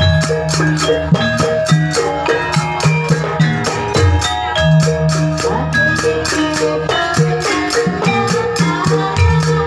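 Accompaniment music for a Javanese dance: drums and tuned, marimba-like percussion playing a fast steady beat of about four or five strokes a second over held notes.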